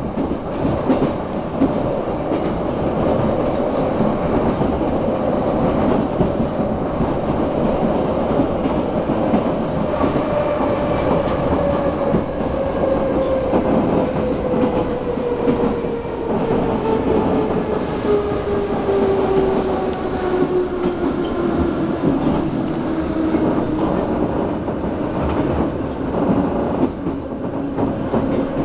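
Ride noise inside a Moscow metro 81-717/714 train car: wheels clattering on the rails under a steady rumble, with the traction motors whining. From about a third of the way in, the whine falls steadily in pitch as the train slows for a station.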